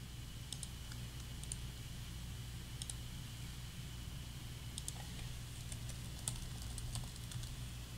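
Faint, scattered clicks of a computer mouse and keyboard keys, a few at a time and thickest in the second half, over a steady low hum.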